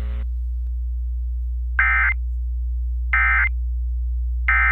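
Emergency Alert System end-of-message code: three short warbling digital data bursts, each about a third of a second and about 1.3 s apart, marking the end of the alert. A steady low hum runs underneath.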